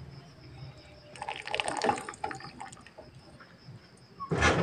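Water draining and dripping from a perforated metal skimmer full of boiled chilies back into a saucepan of cooking water, with a louder splashing burst near the end.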